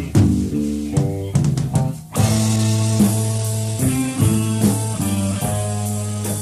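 Rock band recording: plucked electric guitar notes with a few drum hits, then about two seconds in the full band comes in, with drums and cymbals keeping a steady beat under guitar and bass.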